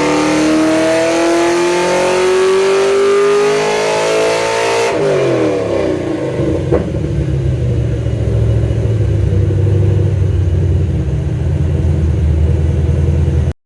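LS1 V8 with a Crow 236/242 cam on a 113 lobe separation and Blackwell CNC heads, rising steadily through the revs under full throttle for about five seconds on a power run. The throttle then shuts, the revs fall away, one sharp crack comes a second or so later, and the engine idles with a low note until the sound stops abruptly near the end.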